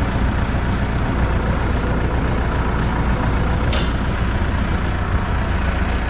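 Tractor engine running steadily with a deep rumble, with a brief squeak about two-thirds of the way through.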